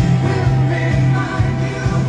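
A song with singing and a heavy bass line playing over the SUV's Audiophile factory stereo.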